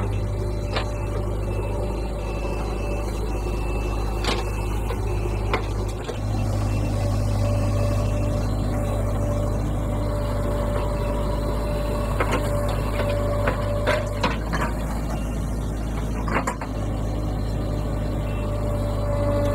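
JCB 3DX backhoe loader's diesel engine running steadily under load while the backhoe digs soil and dumps it into a tipper truck. A higher steady whine swells and fades, and scattered sharp knocks and clanks come from the bucket and the falling soil.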